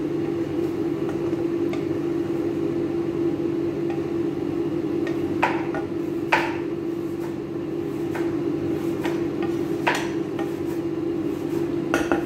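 A cooking utensil knocking against a pan a few times, sharpest about five and a half, six and a half and ten seconds in, then several quick knocks at the end. A steady low hum runs underneath.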